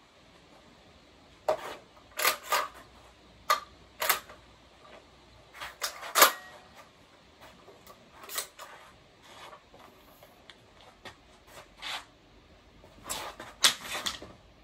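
Sharp metallic clicks and clacks from a Beretta 1301 Tactical semi-automatic shotgun being handled and readied to fire, about fifteen irregular clicks that bunch together near the end.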